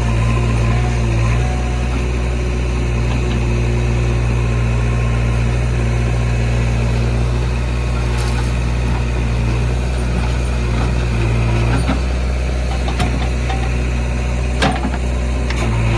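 Heavy diesel engine idling steadily, with a couple of sharp knocks in the last few seconds.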